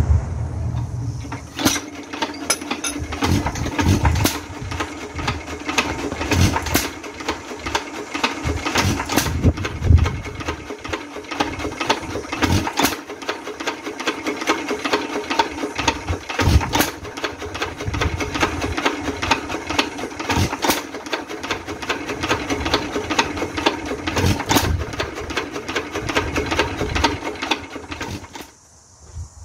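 Associated Chore Boy hit-and-miss engine running: a fast mechanical clatter from the valve gear, with a heavier knock every two to four seconds as it fires and coasts. The clonking valve rod is still not adjusted here. The sound cuts off near the end.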